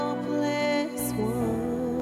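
Music: held notes over a steady chord, with a melody line that wavers in pitch, and a short hiss about a second in.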